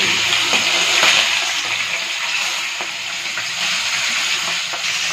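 Rohu fish steaks sizzling in hot oil over a high gas flame: a steady hiss with a few small crackles, while a metal spatula turns the pieces in the aluminium kadhai.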